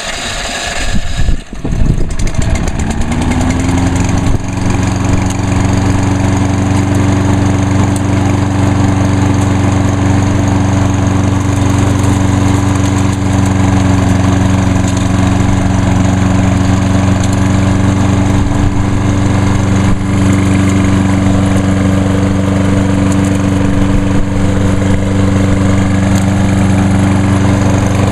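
Kohler 149 cc overhead-valve engine on a 2011 Lawn-Boy 10606 mower being started on its electric start. It catches about two seconds in, climbs in pitch, then settles into steady running.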